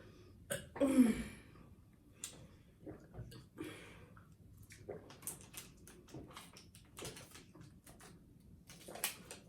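Water being gulped down fast from plastic water bottles: scattered short crackles, clicks and swallows, with a short falling voice sound about a second in.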